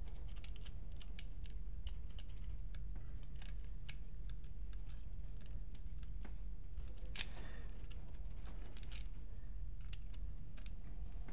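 Small scattered metal clicks and ticks of an Allen key turning screws into a paintball pistol's folding stock assembly, with one sharper click about seven seconds in, over a faint steady low hum.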